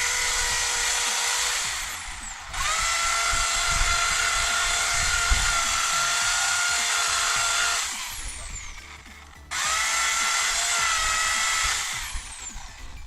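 Electric drill run in three bursts, each a steady high whine that winds down when the trigger is released, drilling out the rivets on the end cap of a motorcycle exhaust silencer.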